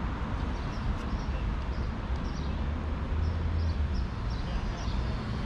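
City boulevard ambience: a steady low rumble of traffic, with small birds in the trees giving short, high chirps again and again.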